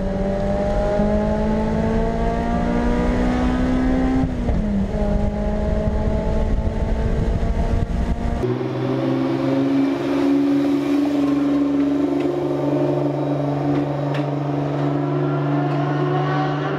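Car engine pulling under steady throttle, its pitch rising slowly, then dropping with a gear change about four seconds in. About halfway through the sound changes abruptly to a steadier engine note without the deep low rumble.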